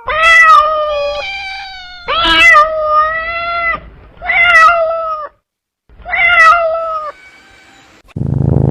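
A cat meowing four times, long high-pitched calls about two seconds apart. A low steady rumble starts near the end.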